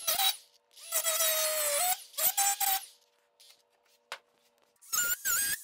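Cordless die grinder grinding down a weld on a steel sheet-metal panel in short whining bursts, its pitch dipping during the longest burst. Near the end comes a run of quicker, higher-pitched bursts.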